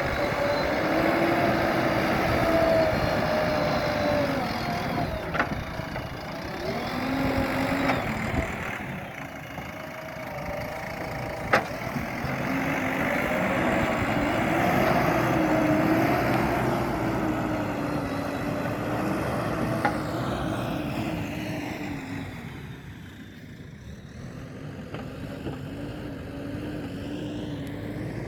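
JCB earthmoving machine's diesel engine running under changing load, its pitch rising and falling as it works, with a few sharp knocks, the loudest about halfway through. The engine sound eases off a little near the end.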